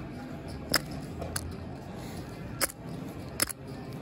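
Poker chips clicking against each other, a few sharp separate clicks over the steady murmur of a busy cardroom.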